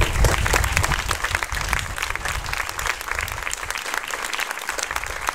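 An audience applauding, many hands clapping at once, easing off a little toward the end.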